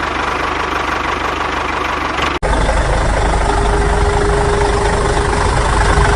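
An engine running steadily, cutting about two and a half seconds in to a louder, deeper engine rumble with a steady hum on top.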